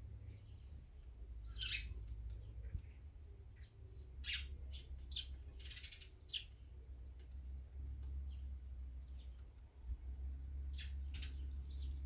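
Small songbirds chirping in short, scattered calls, several in quick succession around the middle and a couple more near the end, over a steady low rumble.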